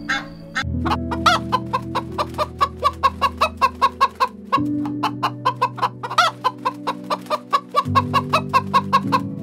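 Chickens clucking in quick repeated short calls, with a louder drawn-out squawk about a second in and again past the middle, over background music with sustained low chords.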